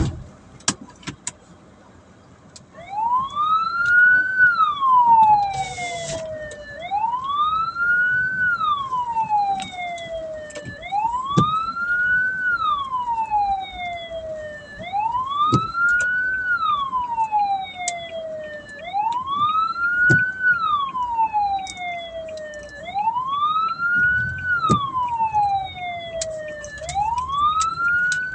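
Hearse's wailing siren switched on about three seconds in, rising and falling in pitch about once every four seconds. A sharp click at the very start.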